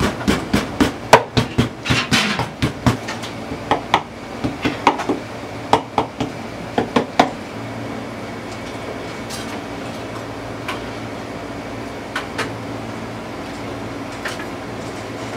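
A kitchen knife knocking quickly and irregularly on a plastic cutting board as raw pork loin slices are scored and tenderized for cutlets. After about seven seconds the knocking gives way to a steady low hum with only an occasional tap.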